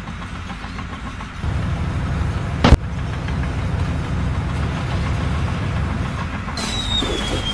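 Excavator's diesel engine running steadily, louder from about a second and a half in, with one sharp bang near the middle. Near the end a thin high whine comes in and falls slightly in pitch.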